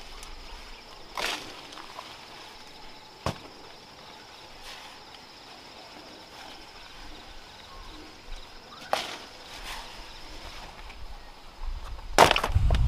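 Steady high insect drone with scattered sharp knocks and rustles of field work. Near the end comes a loud crack, followed by heavy crunching and splintering of woody plant stems.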